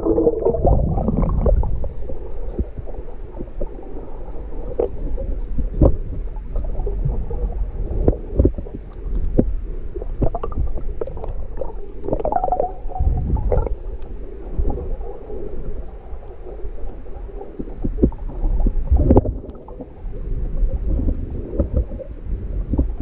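Muffled water sound recorded under the surface by a submerged camera: low rumbling and gurgling of moving seawater, with many small clicks and knocks scattered through it.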